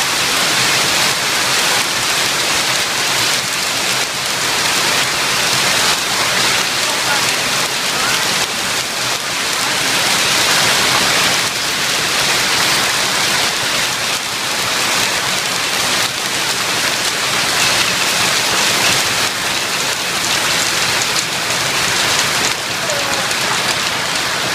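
Heavy hailstorm: hailstones falling hard and hitting the ground and surrounding surfaces in a dense, steady din with no let-up.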